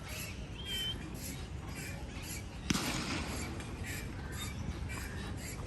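Outdoor ambience of birds calling repeatedly over a steady low rumble, with a single sharp crack, the loudest sound, about halfway through.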